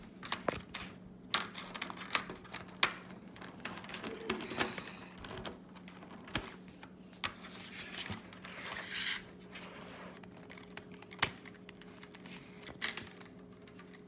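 Plastic speed-cube pieces clicking and knocking as corner pieces are fitted one by one into a disassembled cube. The clicks come at irregular intervals, with a few sharper snaps among them.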